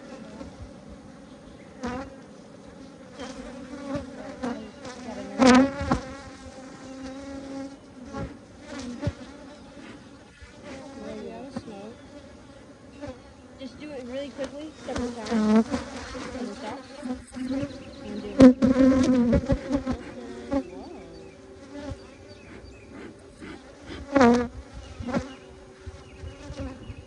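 Honeybees buzzing around an open hive: a steady, even drone, with a few louder buzzes that swell and bend in pitch as single bees fly close past.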